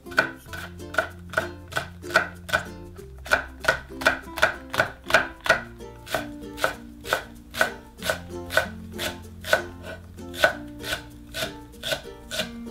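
White ceramic kitchen knife slicing green onion on a wooden cutting board: sharp, even knife strikes about two to three a second, quickening for a moment about four seconds in.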